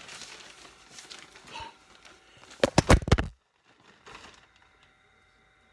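Rustling and knocking as the recording phone is handled and propped into place, with a cluster of loud knocks about halfway through.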